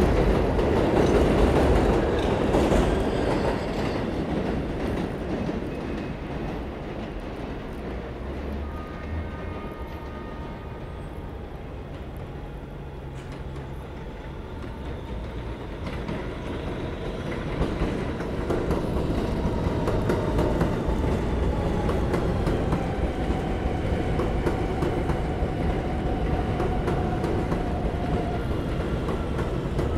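A subway train runs past with a loud rumble that fades over the first several seconds; after a quieter lull, another subway train approaches and pulls into the station from about halfway through, its motors whining in tones that slowly fall in pitch as it slows, over wheels clicking across the rail joints.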